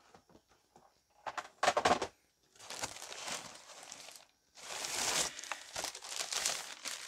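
Handling of packaging: a couple of knocks about a second and a half in, then two stretches of crinkling and rustling as the next graded comic slab is taken out of the shipping box.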